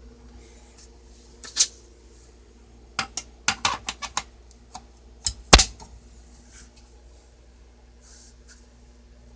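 Olivetti Underwood Studio 44 portable typewriter being worked: a single sharp mechanical clack, then a quick run of about seven clacks, then a few more, the loudest just past the middle.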